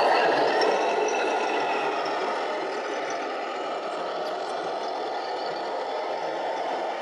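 Radio-controlled scale model truck running, with a steady mechanical noise and a faint high whine that dips slightly in pitch about a second in.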